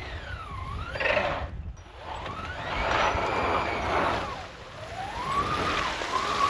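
Electric drive motor of a 1996 Toyota Land Cruiser converted to electric, whining with a pitch that rises and falls as the truck speeds up and slows while pushing through deep snow. Bursts of rushing tyre and snow noise come about a second in and again through the middle.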